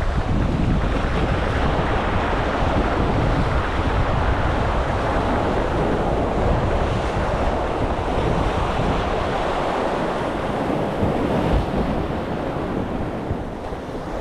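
Sea waves washing and splashing against the concrete tetrapods of a breakwater, with wind rumbling on the microphone. The wind rumble eases in the second half.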